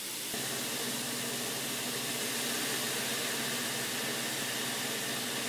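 Chopped vegetables sizzling and steaming in an oil-free nonstick frying pan with a little water added: a steady, even hiss over a low steady hum.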